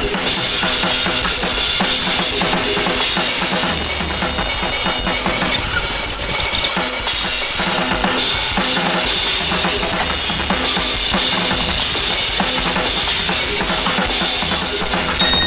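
Harsh noise music: a dense wall of distorted electronic noise packed with rapid percussive hits and shrill high steady tones, swelling louder for about a second and a half from six seconds in.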